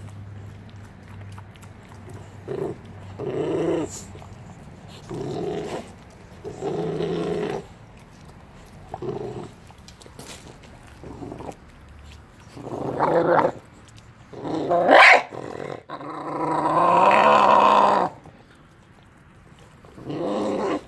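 Renascence Bulldogge puppy growling over a raw turkey carcass in a string of short growls, louder and longer in the second half. This is food guarding: warning off the dogs that come close to its meal.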